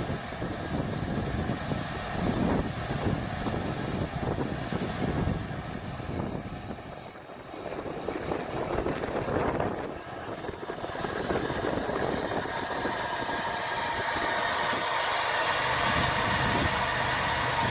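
Lucas portable sawmill's gasoline engine running under load as its saw blade cuts lengthwise through a large walnut log, taking off the first slab. The level dips twice around the middle, then holds steadier and a little louder toward the end.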